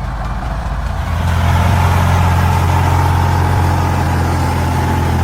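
Logging truck's engine running hard under load, getting louder about a second in and then holding steady.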